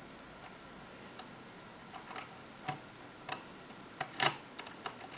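Small metallic clicks of a hook pick and tension wrench working the pins of a 5-pin Union euro cylinder lock, coming irregularly and growing more frequent, with the loudest cluster about four seconds in.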